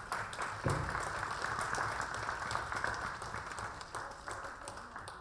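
Applause from a small audience and the panel, with a low thump about a second in, dying away near the end.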